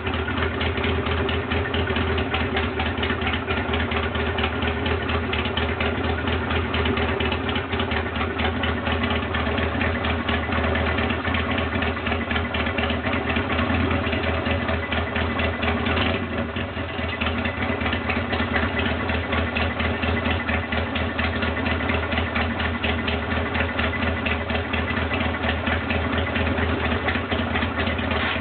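Harley-Davidson Sportster XL883C's air-cooled 883 cc V-twin idling steadily, with an even, rapid pulsing beat.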